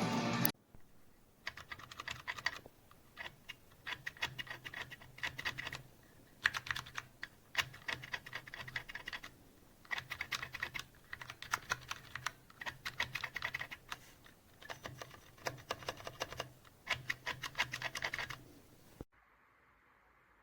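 Typing on a Cherry MX Board 3.0 S mechanical keyboard with MX Silent Red switches: bursts of rapid keystrokes separated by short pauses. The typing stops about a second before the end.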